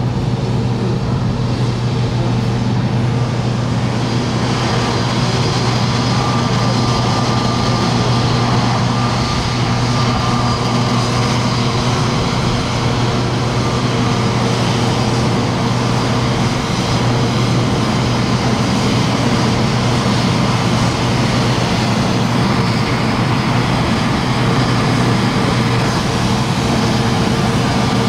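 Jet engines of an Airbus A320neo idling as it taxis in: a steady, unbroken hum with a low drone, joined about four seconds in by a thin high whine.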